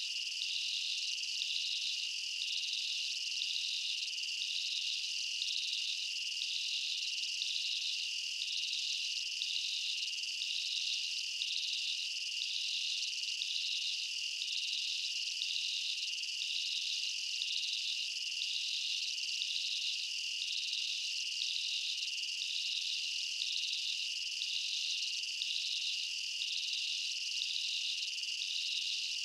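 Insect chorus: a steady shrill drone with a second, higher layer pulsing at an even, regular rhythm, unchanging throughout.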